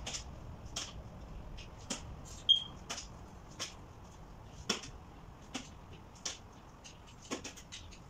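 Light clicks and knocks of wooden parts and a cordless drill being handled while a small wooden door is fitted to a wooden bird cage, about one a second. The loudest, about two and a half seconds in, has a brief high squeak.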